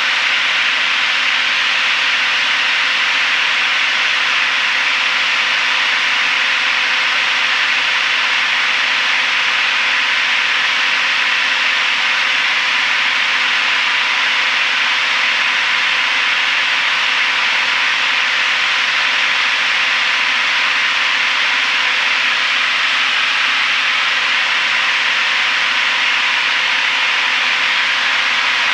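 Steady in-flight cabin noise of a Piper PA-32R single-engine piston aircraft in cruise: an even hiss of engine, propeller and airflow, with a faint constant hum underneath and no change in power.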